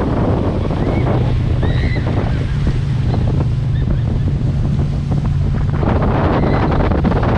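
Wind buffeting the microphone over rushing water, with the steady low drone of the towing motorboat's engine underneath.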